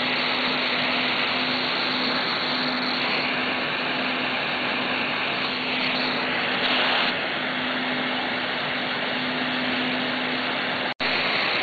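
Operating-room surgical equipment running steadily: an even airy hiss with a low hum under it that fades out about nine and a half seconds in. The sound drops out for an instant near the end.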